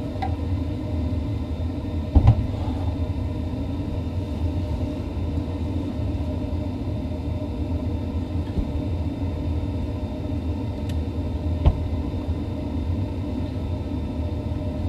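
Gas furnace running with a steady low rumble and hum, broken by two sharp knocks, about two seconds in and again near twelve seconds.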